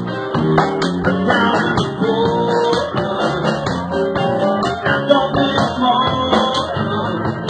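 Live band playing an upbeat groove, with electric guitar over bass guitar and a drum kit keeping a steady beat.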